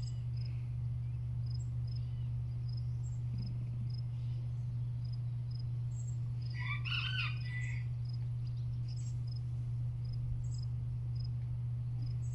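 Insects chirping in short high pips, roughly every half second, over a steady low hum, with a short bird call about seven seconds in.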